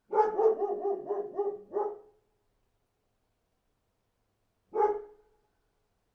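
Dog barking: a quick run of about six barks in the first two seconds, then a pause and a single bark near the end.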